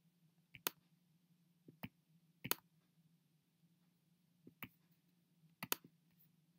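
Computer mouse button clicking: several sharp, separate clicks, a few in quick pairs, over a faint steady hum.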